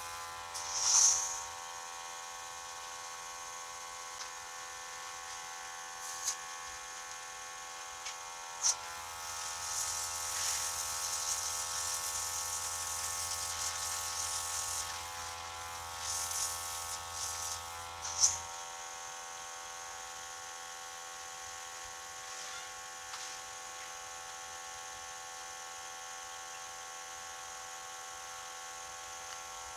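Small airbrush compressor running with a steady buzzing hum, while the airbrush sprays in hissing bursts, the longest from about 9 to 18 seconds in, with a few short clicks.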